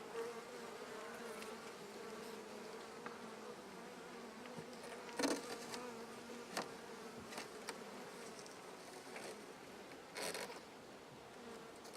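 Honeybees buzzing steadily around an open hive, a continuous hum. Two brief scrapes cut in about five seconds and ten seconds in.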